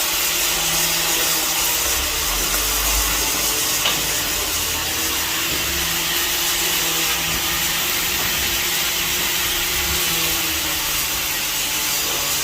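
Electric arc welder's arc hissing steadily, with one short sharp click about four seconds in.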